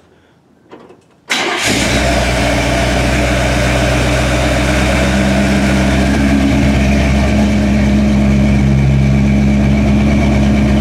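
1963 Chevrolet C10 pickup's engine, just fired up on new wiring, comes in suddenly about a second in and then idles steadily.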